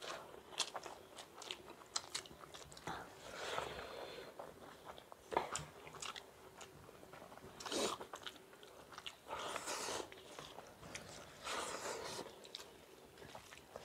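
Two people eating rice with egg bhurji by hand from steel plates: faint chewing and mouth sounds, with scattered small clicks.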